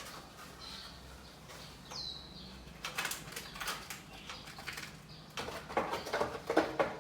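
Distribution box front cover being handled and fitted back in place: irregular rustling, scraping and light knocks, starting about three seconds in and getting busier near the end.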